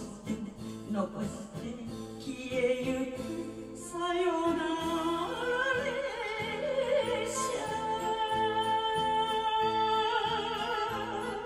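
A woman singing an enka song into a handheld microphone over a karaoke backing track, her voice stronger after about four seconds and holding long notes with a wide vibrato.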